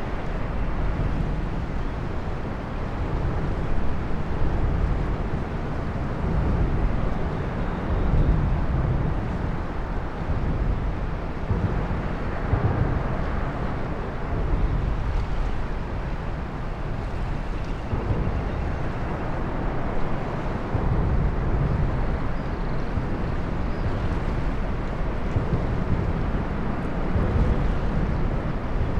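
Ambience beneath a road bridge over a beach inlet: a steady low rumble that swells and eases, from traffic crossing overhead, mixed with the wash of water.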